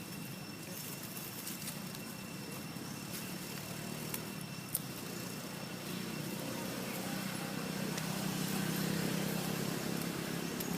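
A road vehicle's engine and tyres passing, building to its loudest a couple of seconds before the end and then easing off, with a couple of sharp clicks about halfway through.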